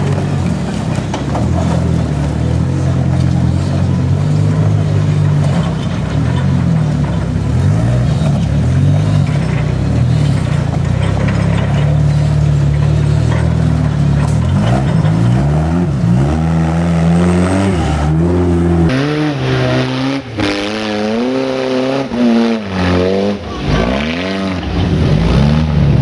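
Off-road trial buggy's engine running steadily at low revs as it crawls over rock, then revved up and down repeatedly in rising and falling blips through the last ten seconds or so.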